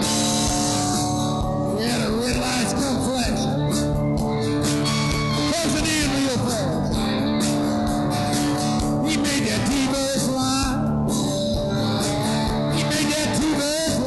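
Live rock band playing: electric and acoustic guitars over bass and drums.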